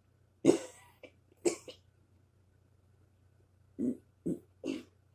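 Short, abrupt burps, five in all: one about half a second in, another about a second later, then three in quick succession near the end.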